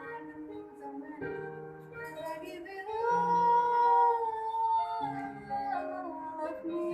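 Music with a singing voice, held notes changing in steps; one long, slightly wavering note about three seconds in is the loudest part.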